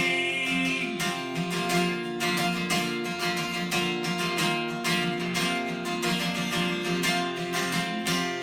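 Acoustic guitar strummed in a steady rhythm: an instrumental passage between sung lines of a song.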